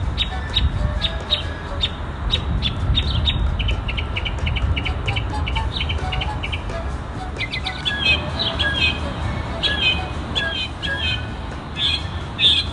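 Mockingbird singing, repeating each short phrase several times before switching to a new one: first clipped single notes, then fast trills about a third of the way in, then fuller varied phrases in the second half. A steady low rumble lies underneath.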